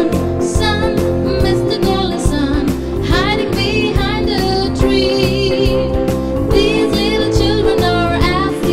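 A children's nursery song sung over instrumental backing with a steady beat; the singer holds some notes with a wavering vibrato.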